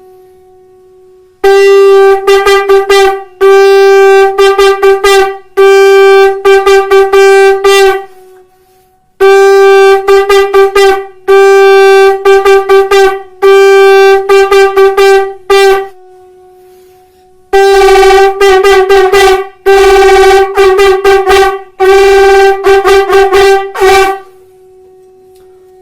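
Conch shell (shankh) blown in the tongued 'tutari' step: three phrases on one steady pitch, each a string of held notes broken into quick tongued pulses. A faint steady tone lies underneath between phrases.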